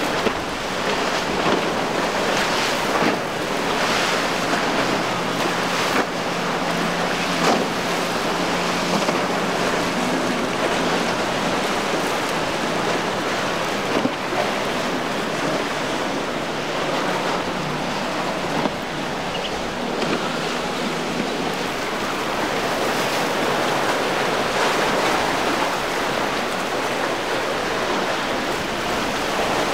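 Choppy inlet water and surf washing, with wind buffeting the microphone in gusts. Underneath runs the faint steady hum of a passing boat's outboard motor.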